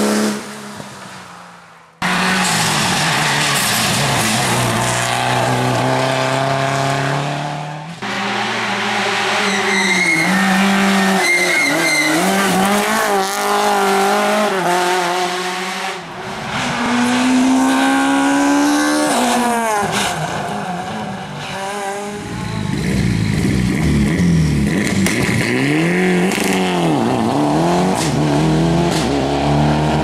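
Rally cars driven hard on a tarmac stage, one pass after another. Each engine revs high, drops at every gear change and under braking, then picks up again.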